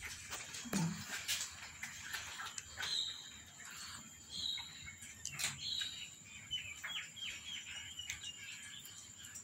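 Cats chewing and lip-smacking as they eat scraps off a tiled floor, a steady patter of small wet clicks. Short high chirps come through several times, with a quick run of falling chirps about two thirds of the way in.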